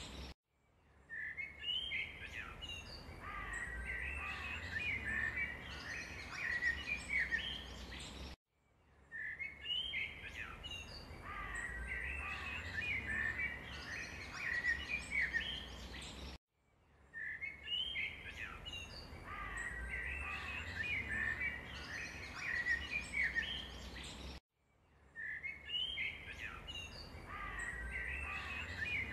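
Small birds chirping and calling in a short recording that repeats about every eight seconds, each repeat separated by a brief dead-silent gap: a looped birdsong track.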